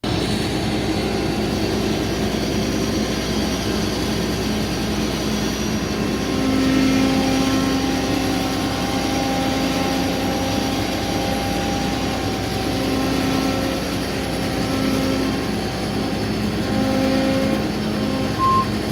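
John Deere 9770 combine's diesel engine running steadily, with a humming tone that grows louder about six seconds in. A reversing alarm starts beeping just before the end.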